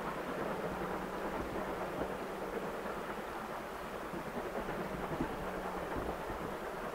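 LMS Stanier 'Black 5' 4-6-0 steam locomotive No. 45212 working a passenger train, heard from afar as a steady rushing noise with no separate exhaust beats.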